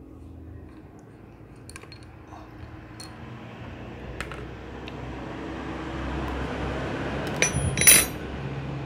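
Light metallic clicks of tools and bolts while the oil filter cover is unbolted from a Suzuki Smash 110 engine case, ending in two sharp, ringing metal clinks near the end. A low background noise swells gradually underneath.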